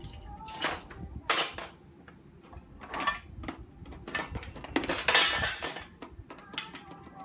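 Small plastic containers and metal tins clattering as a toddler rummages in a drawer and knocks them about on a wooden floor: several separate clatters, the longest and loudest about five seconds in.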